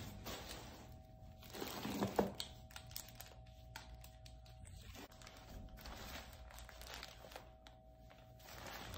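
Plastic bags and packaging crinkling and rustling as gloved hands move items around in a cardboard box, with the loudest rustle about two seconds in.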